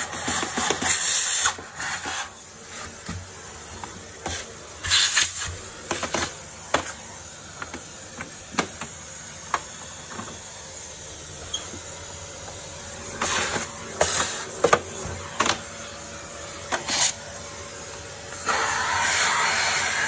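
Plastic housing parts of a canister vacuum cleaner being handled and pulled apart: irregular clicks, knocks and scrapes of hard plastic, with a steadier rubbing noise near the end as the hose is moved against the body.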